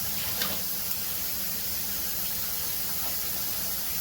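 Ground turkey sizzling in a hot frying pan, a steady hiss, with a couple of faint clicks in the first second.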